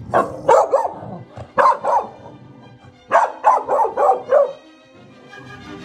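A corgi barking in three quick bursts of several sharp barks each, falling silent about two thirds of the way through. Background music plays underneath.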